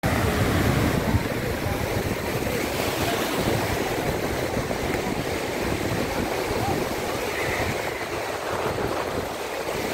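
Small surf waves breaking and washing up a sandy shore, a steady rushing wash, with wind gusting on the microphone.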